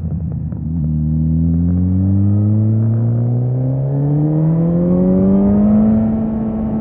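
Suzuki GSX-S 1000's inline-four engine pulling under acceleration. Its pitch climbs steadily for about five seconds, then levels off near the end.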